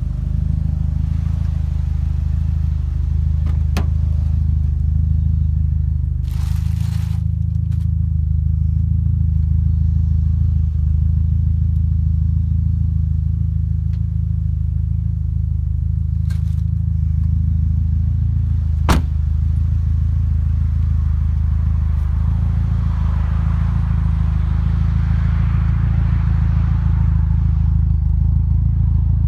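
Turbocharged 2.0 L 4G63 four-cylinder of a 1996 Mitsubishi Lancer Evolution IV idling steadily through an aftermarket exhaust, with a few light clicks.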